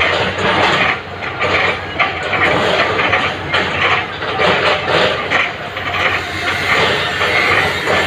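Caterpillar 313 hydraulic excavator working: a loud, dense mechanical clatter and hiss with irregular knocks, and a thin high squeal coming in about six seconds in.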